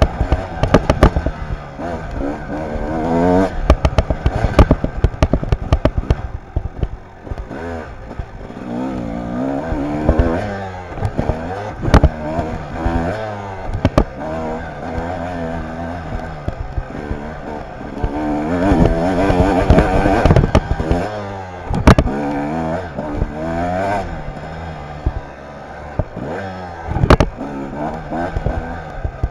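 Kawasaki dirt bike engine being ridden hard, its revs rising and falling again and again, with sharp knocks and rattles scattered throughout from the bike jolting over a rough dirt trail.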